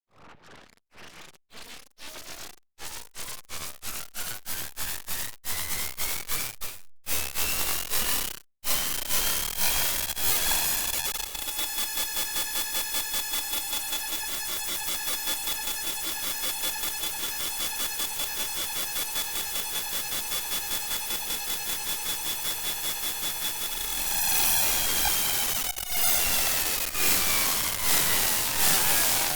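Raw synthesized electronic noise: harsh pulses that come faster and faster over the first ten seconds, then merge into a steady, dense, finely pulsing buzz. A thin tone rises, holds, and falls back near the end, as the buzz breaks up again into irregular pulses.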